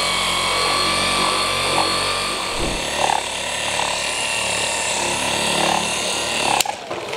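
Small 3-inch random orbital polisher with a 12 mm throw running a blue foam cutting pad and compound over piano-black trim. Its motor whine holds a steady pitch, then cuts off suddenly near the end.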